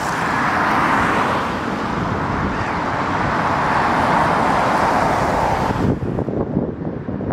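Road traffic on a wide multi-lane city avenue: a steady wash of car tyre and engine noise that swells as vehicles pass. About six seconds in the traffic noise drops away suddenly, leaving a low, gusty wind rumble on the microphone.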